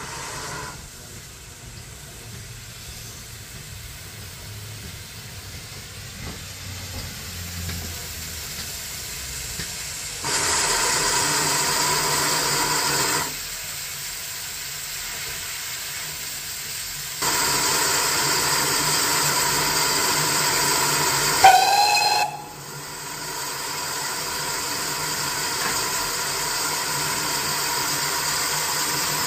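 Steam locomotive running in, its low rumble growing louder, then sounding its steam whistle twice, about three and four seconds long, the second blast sliding in pitch as it shuts off. Afterwards a steady hiss of steam from the locomotive.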